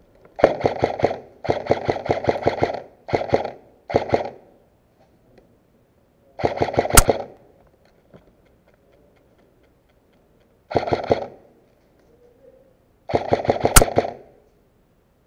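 Airsoft AR-15 rifle firing in bursts of rapid clicking shots, seven bursts in all: four close together in the first four seconds, then three more spaced out, the longest lasting over a second.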